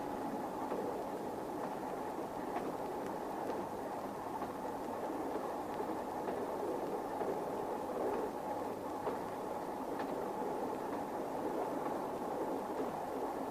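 Steady running noise of a moving train, with a few faint clicks scattered through it.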